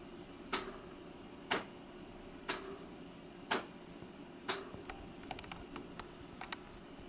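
Five sharp taps, evenly about a second apart, followed by a quicker run of fainter clicks.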